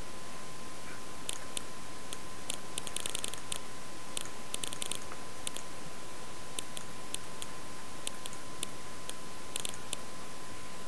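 Steady hiss with a constant high whine, and scattered light clicks over it, some in quick runs.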